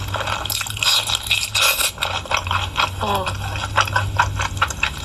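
Close-miked wet chewing and lip-smacking of someone eating pork, a quick run of short, clicky mouth smacks.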